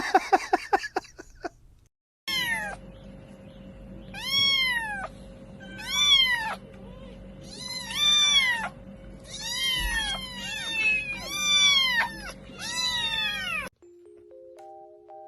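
Domestic cat meowing again and again, about ten separate meows a second or so apart, each rising and then falling in pitch.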